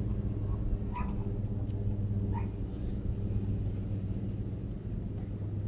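A steady low mechanical hum, with faint short chirps above it twice.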